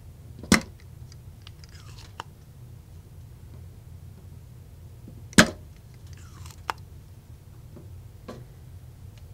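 Spring-loaded desoldering pump (solder sucker) firing twice, about five seconds apart, with a loud sharp snap each time as it sucks molten solder from a joint. Each snap is followed a second or so later by a fainter click.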